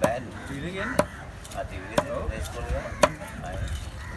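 Large knife chopping skipjack tuna into chunks on a thick wooden block: four sharp chops, about one a second.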